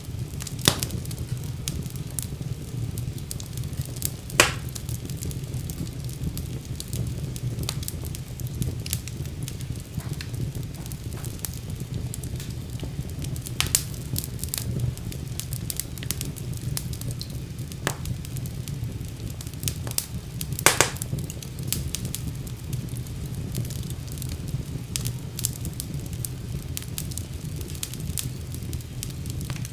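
Wood fire burning in a fireplace: a steady low rumble with scattered crackles and a few sharp pops, the loudest about four seconds in and about twenty-one seconds in.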